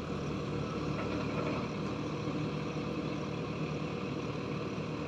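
Diesel engine of a JCB 4DX backhoe loader running steadily.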